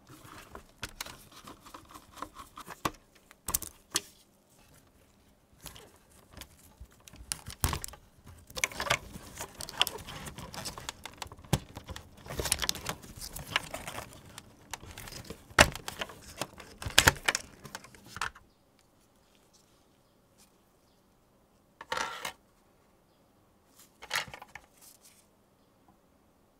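Hands in nitrile gloves handling cables and plastic and metal parts inside an iMac G4's dome base: a busy run of clicks, rattles and rustling, then mostly quiet with two short rustles near the end.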